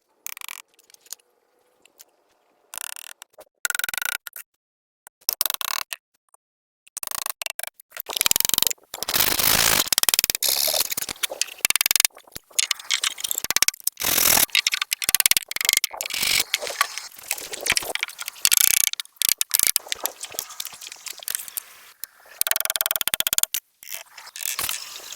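Handwork on wood: irregular scrapes, clicks and knocks. They are sparse at first, then come thick and fast from about eight seconds in.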